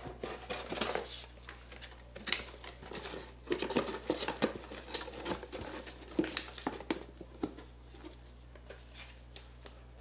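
Crinkling and rustling of clear inflatable air-column plastic packaging being handled, with light knocks and taps among the crackles; it dies down over the last couple of seconds.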